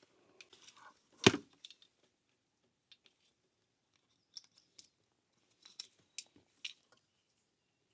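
Scattered clicks and taps of cables and connectors being handled, with one sharper knock a little over a second in and a small cluster of clicks near the end.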